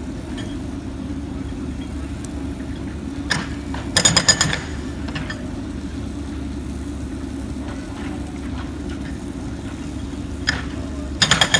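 Jackhammer firing in two short bursts of rapid hammering, about 4 seconds in and again near the end, over a steady low engine rumble.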